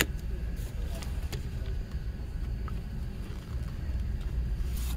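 Plastic CD jewel case being handled: a sharp click, then a few light clicks and rustles as the disc is touched and the case is closed, over a steady low rumble.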